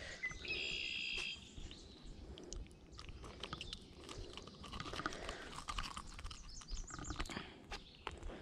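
Faint clicks and rustling from handling a largemouth bass and working a hollow-body frog lure out of its mouth. A short, high bird call sounds about half a second in.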